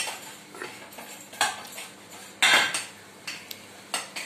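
Steel utensils and dishes clanking against each other and the stainless-steel sink as they are washed by hand: about five sharp clatters with a short ring, the loudest about halfway through.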